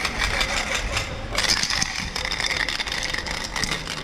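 Aerosol spray-paint can hissing as paint is sprayed, the hiss brightening about a second and a half in, over a steady low rumble.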